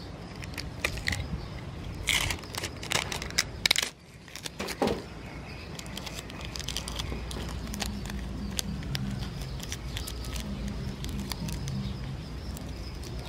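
Adhesive tape being pulled and pressed onto a small tissue-paper packet by hand: a run of sharp crackling clicks a couple of seconds in, then quieter handling.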